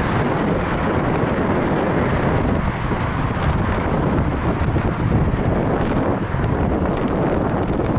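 Wind buffeting the microphone of a bicycle-mounted camera as the bike rides along, a steady rushing with deep rumble from the tyres on the road and a few faint clicks and rattles.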